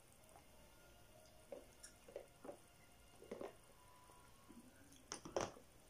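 Quiet handling of a plastic drink cup and sips through its straw: a few soft short sounds, then two sharper clicks about five seconds in.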